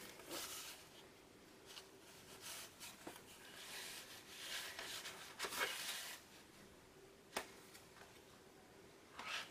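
Faint rustling and sliding of paper and cardstock cut-outs being handled and laid on a journal page, with a few light taps.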